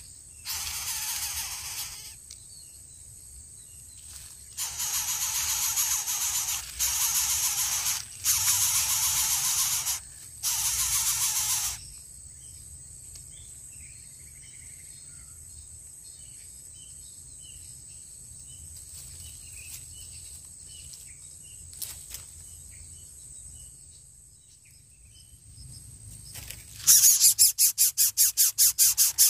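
Coucal chicks in the nest giving harsh hissing rasps in several bursts of one to two seconds, then a lull with faint distant bird chirps. Near the end comes a loud, rapid pulsing rasp as a chick gapes to beg for food.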